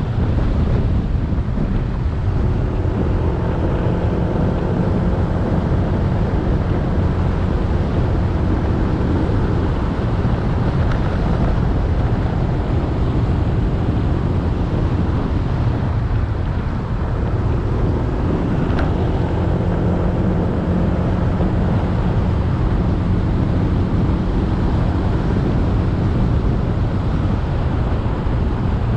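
Motorcycle engine running at road speed under steady wind rumble on the microphone, easing off briefly just past halfway.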